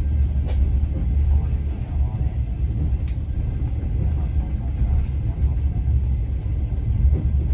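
Steady low rumble of a passenger train running, heard from inside the carriage, with a couple of faint clicks.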